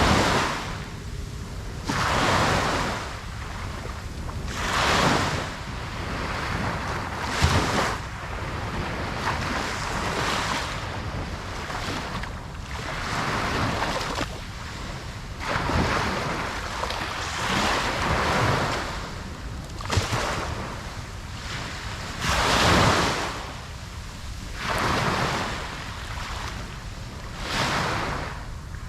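Ocean waves breaking on a beach, the surf swelling and washing in every two or three seconds over a steady low rumble, with some wind on the microphone.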